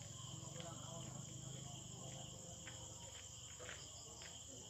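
Crickets trilling steadily and faintly in the night, over a low steady hum, with a few faint clicks.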